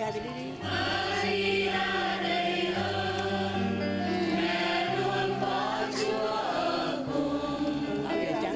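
A choir singing a hymn over low held accompaniment notes that change pitch every second or two.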